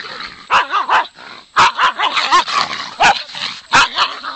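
Dogs barking and yipping as they play-fight: a string of short, loud barks with higher, wavering yips between them.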